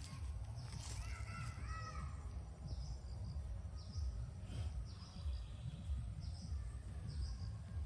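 Birds calling, with one longer call about a second in and short high chirps repeating, over a steady low rumble.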